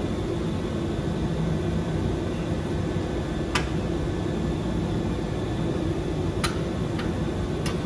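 Steady mechanical hum with a few short, sharp clicks or taps, the last three close together near the end.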